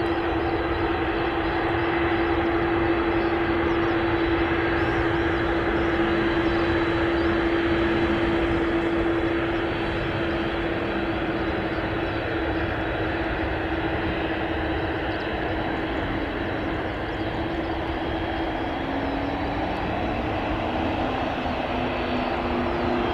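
Boeing 747-400F freighter taxiing, its four jet engines running at low power: a steady whine over a continuous rushing drone. Near the end a second, lower tone comes in and rises slightly in pitch.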